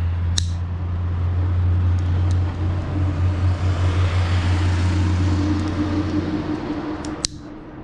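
A motor vehicle running close by, a steady low engine hum with road noise that swells and then fades. Two sharp clicks, one about half a second in and one near the end.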